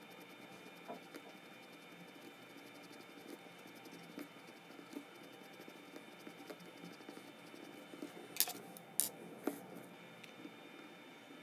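Faint scratching and light tapping of a pencil drawing on a small piece of paper, with three sharp clicks about three-quarters of the way in, over a faint steady hum.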